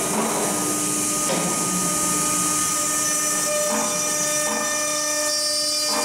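Blue Elephant CNC door lock machine running, its spindle motors giving a steady whine of several held tones over a hiss. Short noises come over it about a second in and again around four seconds in.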